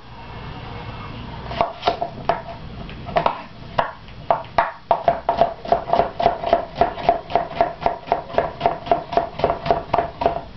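Kitchen knife chopping cucumber on a cutting board: a few scattered knocks, then about halfway through a fast, even run of chops, about three to four a second, each with a slight ring.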